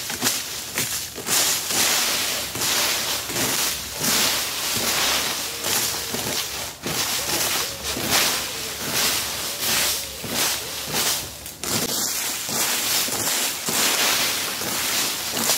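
Plastic fan rake scraping dry leaves and twigs across bare soil in repeated strokes, about two a second.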